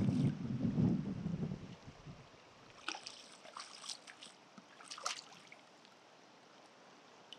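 Low rumble of river water sloshing and wind on the microphone that fades out after about two seconds, then a handful of light splashes at the water surface between about three and five seconds in.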